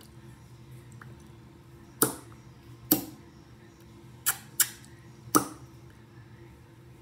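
Five sharp lip smacks, kissing pops made with freshly glossed lips, two of them in quick succession about four and a half seconds in.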